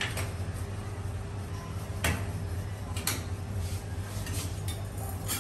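A small hand tool scraping along the grout lines between ceramic wall tiles: four short, sharp scrapes a second or so apart, cleaning out excess grout, over a steady low hum.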